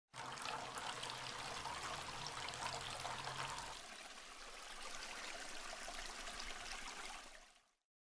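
Water from a homemade tabletop waterfall fountain trickling and splashing down its rock wall into the glass fish tank, with a faint low hum under it for the first half; it fades out near the end.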